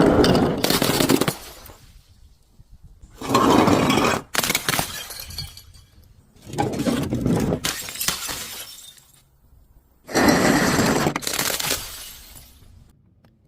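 Glass shattering and crunching as it is broken, in four separate bursts about three seconds apart, each trailing off over a second or two.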